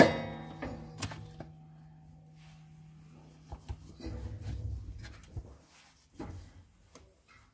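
A sharp metal clank that rings on with a steady tone for two to three seconds, followed by a few scattered, quieter knocks and handling sounds as the steel sauna stove is worked while its kindling is being lit.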